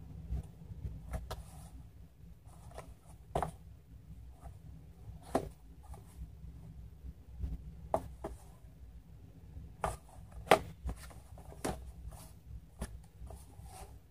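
Small cardboard box handled by hand: irregular light knocks and clicks as it is turned over and set down on a wooden tabletop, with fingers rubbing the cardboard, the sharpest knock about ten seconds in, over a low steady hum.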